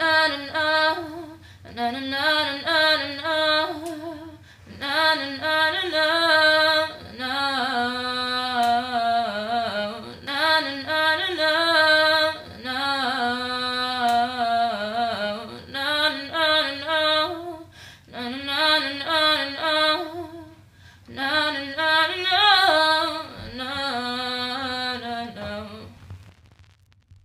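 A woman singing unaccompanied, in phrases of one to three seconds with short breaks between them; the singing stops near the end.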